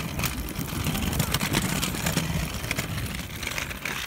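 Wind noise on the microphone of a phone carried on a moving bicycle, with a steady low rumble and many small rattles and knocks as the bike rolls over pavement.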